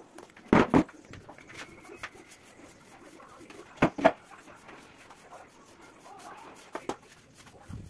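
Wooden chair being handled and moved, knocking sharply: two loud knocks about half a second in, two more around four seconds in, and a lighter one near seven seconds.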